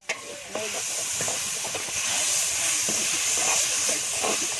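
Chicken stir-frying, sizzling steadily; the sizzle swells about half a second in and then holds.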